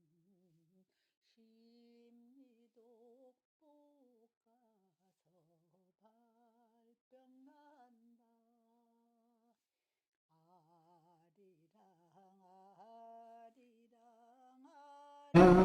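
A very faint hummed tune: a slow wavering melody held on sustained notes. Near the end it is cut into by a sudden loud vocal sound.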